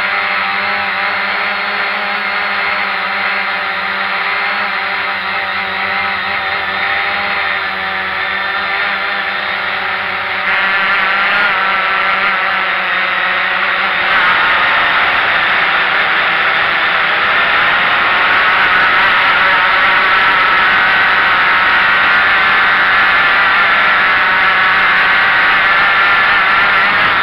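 Cheerson CX-20 quadcopter's four electric motors and propellers running, heard close up from the drone's own onboard camera, a steady whine. It gets louder in steps about ten and fourteen seconds in as the drone powers up and climbs.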